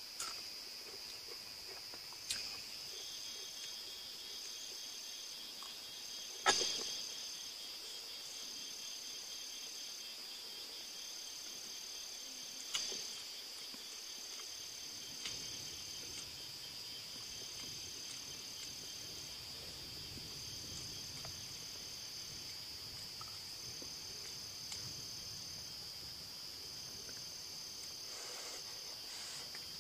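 Steady high-pitched insect chorus from the surrounding grass, with a second insect calling in repeated trills about a second long. A few sharp knocks of dishes and utensils break in, the loudest about six and a half seconds in.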